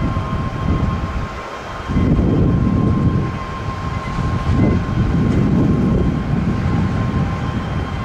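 Air Canada Boeing 787's jet engines at takeoff power on the runway roll: a heavy rumbling roar with a steady high whine over it, surging louder from about two seconds in. Strong wind buffeting the microphone adds uneven low rumbles.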